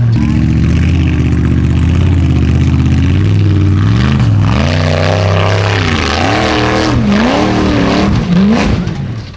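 Formula Offroad unlimited-class buggy's engine under full load climbing a steep dirt hill. The revs hold steady at first, then from about four seconds in swing up and down again and again, and drop away right at the end.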